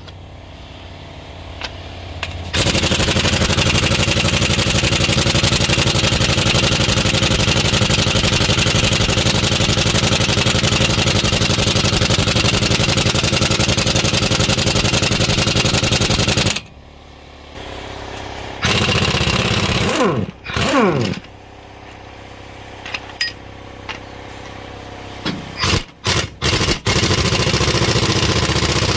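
Impact wrench breaking loose the head bolts on a Caterpillar 3406B cylinder head. It hammers in one long run of about fourteen seconds, then comes several shorter bursts, with the motor winding down in pitch when the trigger is let go.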